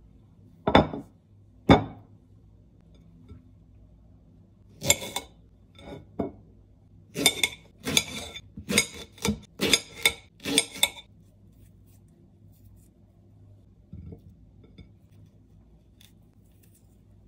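A kitchen knife cutting a banana on a plate, the blade clinking against the plate with each cut. There are two loud clinks about a second apart near the start, then a quick run of about ten between five and eleven seconds in.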